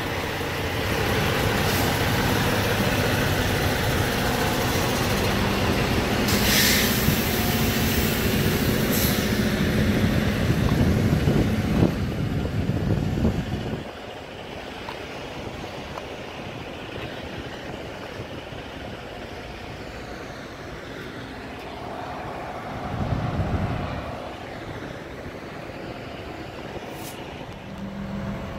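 Semi trucks idling close by, a dense diesel rumble with a steady low hum, broken by a short sharp hiss about six seconds in and a weaker one near nine seconds. About fourteen seconds in it cuts to a much quieter, steady outdoor background noise.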